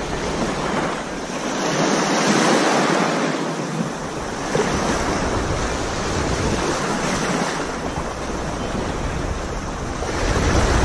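Small waves washing in and out on a sandy shore, swelling and fading, with wind buffeting the microphone and a low rumble that grows near the end.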